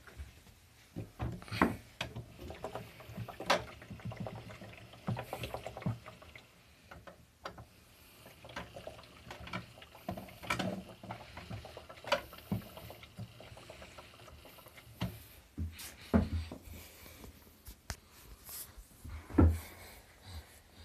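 Water sloshing and splashing inside the turning drum of a toy Miele washing machine on a cleaning cycle, with irregular knocks and clicks.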